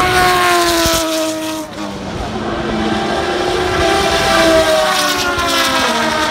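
Race car engines passing at speed, each note dropping in pitch as the car goes by: one car right at the start, then a second, louder pass by more cars about four to five seconds in.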